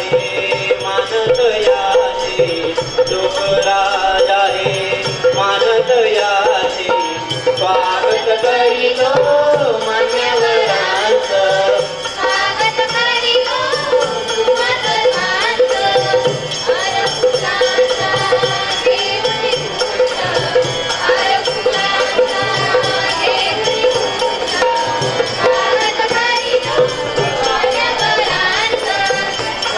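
A small group of young women and men singing a swagat geet (welcome song) together through microphones. Underneath is a steady held note and a jingling percussion keeping a regular beat.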